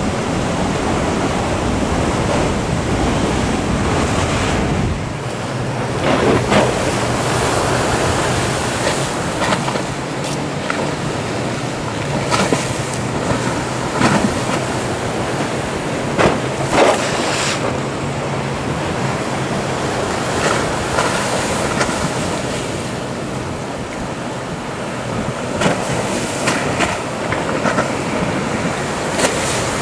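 Surf and wind noise, with the steady low drone of a motorboat's engine and repeated splashes as its hull crashes through the waves.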